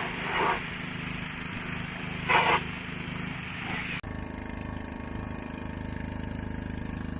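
Engine-driven pressure washer running while its wand sprays water over a planter, with a louder burst of spray near the start and another about two and a half seconds in. About four seconds in, the sound cuts abruptly to a steady engine running.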